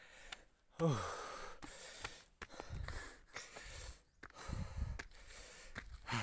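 A person breathing hard while climbing steps, with a falling, sighing exhale about a second in. Low footfall thumps and knocks from the phone being handled come through now and then.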